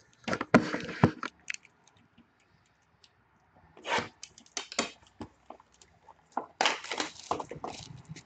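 Crinkling and tearing of a sealed trading-card box's plastic wrap and packaging being opened by hand, in irregular bursts with a few sharp cracks.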